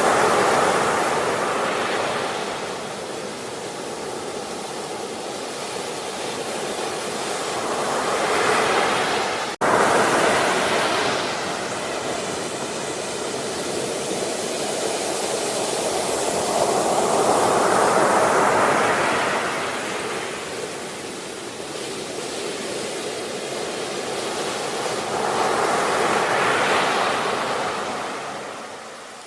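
Ocean waves surging and washing ashore, one swell about every eight seconds, each rising to a rush and then ebbing away. There is a brief, abrupt dropout about a third of the way in, and the sound fades down near the end.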